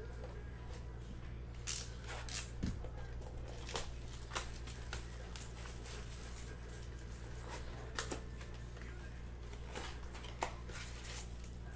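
Clear plastic shrink wrap being torn and crinkled off a trading-card blaster box, with scattered sharp crackles as the box and packs are handled, over a steady low hum.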